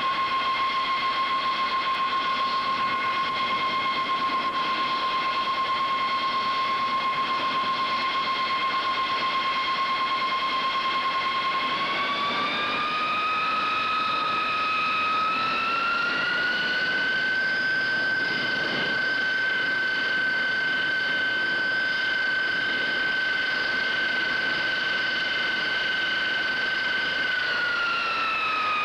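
Jet engine whine: a steady high tone with overtones over a rushing noise. It rises in pitch in two steps about twelve seconds in, holds at the higher pitch, then drops back near the end.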